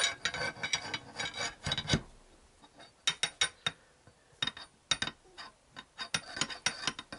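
Steel tyre lever bar scraping and knocking inside a Yamaha XJ900S Diversion front fork tube as it is worked down inside. A dense run of metallic scraping comes first. Then clusters of sharp clinks follow.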